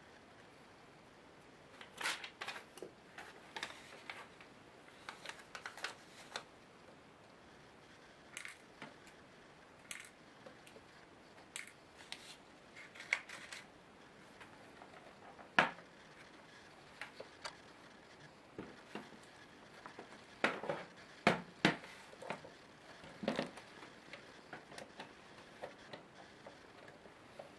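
Light, irregular clicks and taps of the ASUS K75VJ laptop's plastic case and parts being handled on a tabletop. A run of heavier knocks comes about two-thirds of the way through, as the laptop is turned over and set down.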